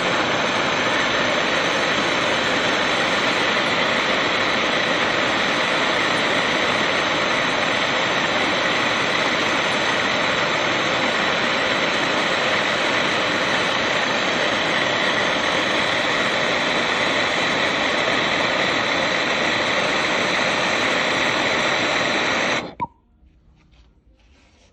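Gas torch flame burning with a loud, steady hiss while it heats an aluminium car air-conditioning pipe for soldering; the flame cuts off abruptly shortly before the end.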